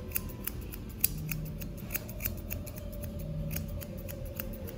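Steel grooming shears snipping quickly through a small dog's facial hair, a run of short crisp snips about four or five a second, as the groomer shapes the coat around the chin.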